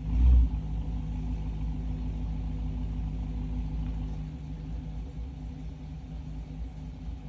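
A loud car engine idling with a steady low rumble, with a brief heavy thump right at the start.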